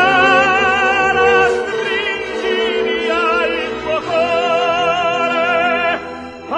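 Italian love song: a singer holding long notes with a wide, even vibrato over instrumental accompaniment. These are the closing bars, and the music drops away about six seconds in.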